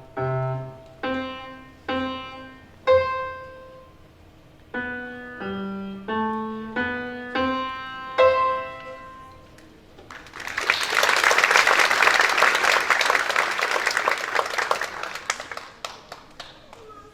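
Solo piano playing a slow line of single notes and chords, each struck and left to ring, ending about ten seconds in. Applause then breaks out for about five seconds and fades away.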